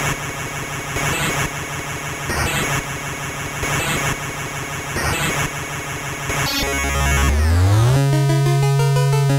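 Electronic background music: a dense, distorted synth texture over a heavy bass with a steady beat, then a rising synth sweep about seven seconds in that opens into clean, stepping synth notes over a held bass note.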